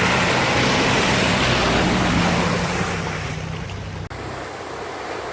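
An off-road vehicle's engine running steadily under a loud rushing noise. Both fade after about three seconds, with a brief cut about four seconds in.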